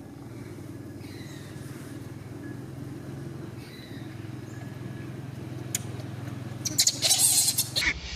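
A small engine runs steadily with a low hum. Near the end, loud scratchy bursts of noise cut in.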